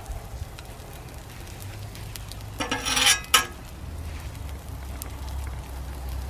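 Meatloaf slices sizzling on a hot Blackstone flat-top griddle over a low steady rumble. About two and a half seconds in there is a brief, louder hiss lasting under a second.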